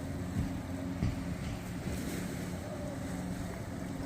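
Wind buffeting the microphone over water, with a steady low hum like a distant motor and two short knocks, one about half a second in and one about a second in.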